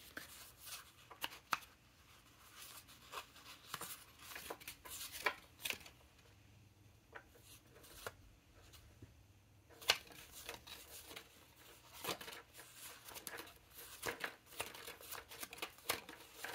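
Card-stock ink swatch cards on a binder ring being flipped and handled: irregular soft rustles and light clicks of paper, quieter for a few seconds in the middle, with one sharper click about ten seconds in.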